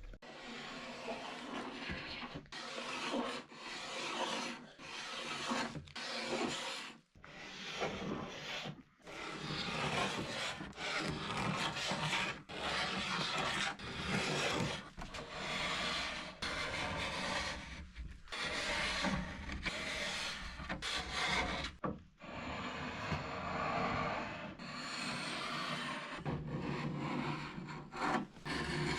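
Hand paint scraper pushed in repeated strokes, roughly one a second with short pauses, across an oak cabinet top, lifting paint softened by chemical stripper.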